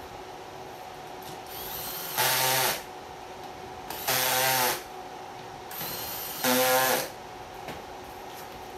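Cordless drill-driver driving the screws that fix an office chair's armrest to its seat: three short runs of the motor, each under a second, about two seconds apart.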